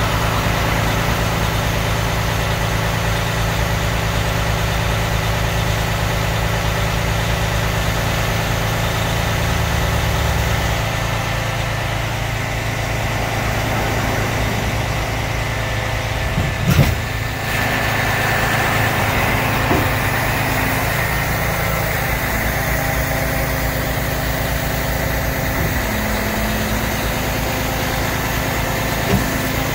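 Propane-fuelled Heli 5000 lb forklift engine idling steadily as the truck creeps along, with a single clunk about 17 seconds in.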